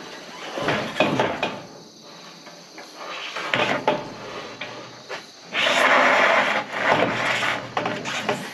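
A thin ribbed metal roofing sheet being handled: a few knocks and rattles as it flexes, then loud scraping and rubbing from about two-thirds of the way through as it is slid up over the edge of the metal roof.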